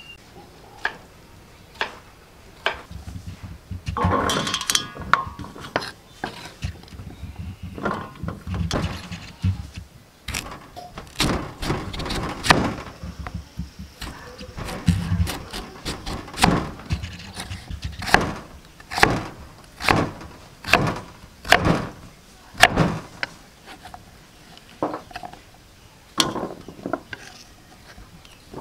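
Cleaver chopping peeled potato and sweet potato on a thick wooden chopping board: sharp knocks of the blade hitting the board, in a steady rhythm of about one stroke a second through much of the stretch. A brief louder jumble of other sound comes about four seconds in.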